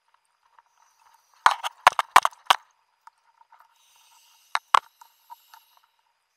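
Sharp knocks and clicks on a wrist-mounted underwater camera housing as the diver's hand bumps and grabs at things: four close together about a second and a half in, two more later on, with a faint hiss between them and light ticking throughout.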